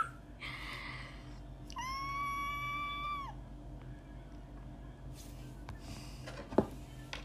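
One high-pitched cry held for about a second and a half, steady in pitch and dropping at the end, after a short breathy sound. A single sharp click comes near the end.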